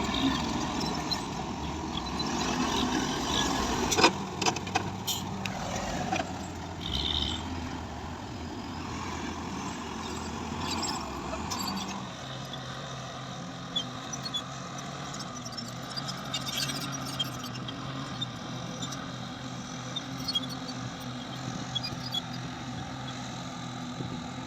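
Heavy machinery engine running, with a sharp knock about four seconds in; about halfway through the sound changes to a steadier low hum.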